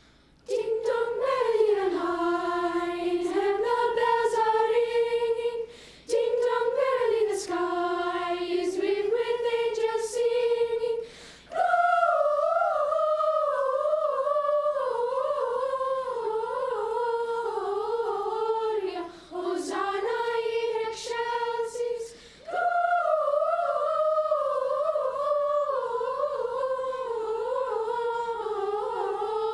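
Choir singing a cappella in long, held phrases with no clear words, close to humming, pausing briefly between phrases.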